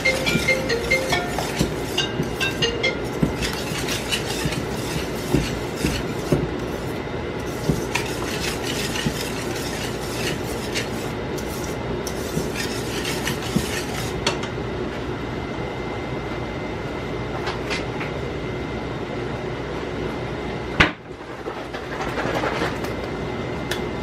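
Metal utensil clinking and scraping against a cooking pot, many quick clicks over the first half, over a steady background hum; a single sharp knock near the end.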